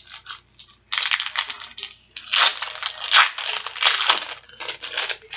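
Plastic wrapper of a 2004 Bowman baseball card pack being torn open and crinkled by hand: a loud, irregular crackling starting about a second in and going on in several bursts.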